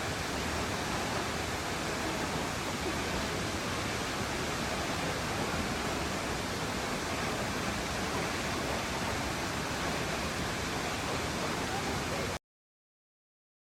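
Nachi Falls, a tall waterfall, pouring steadily as an even rush of falling water, cut off abruptly near the end into silence.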